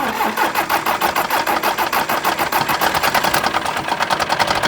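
John Deere 2030 tractor engine being cranked by its freshly rebuilt electric starter, turning over in a fast, even rhythm of compression strokes.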